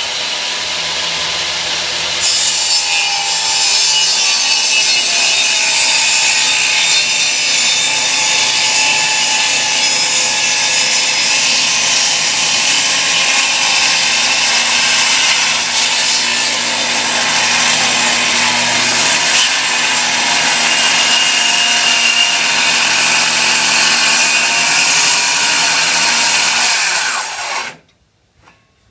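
An electric woodworking power tool running continuously under load on a 2x4. It stops abruptly about a second before the end.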